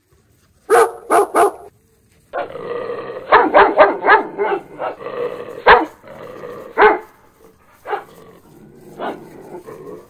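Dogs barking: three quick barks about a second in, then a run of rapid barks with growling under them, and two single barks near the end.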